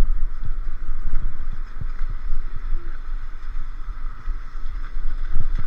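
Solar P1 Pro electric scooter ride: wind buffeting the microphone and road rumble, over a steady high hum from the moving scooter.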